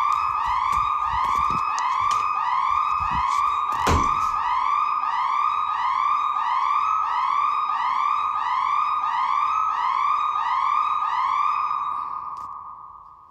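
An electronic alarm tone from an alarm app, repeating short rising whoops in quick succession. A few low thumps and one sharp knock come about four seconds in, and the tone fades away over the last couple of seconds.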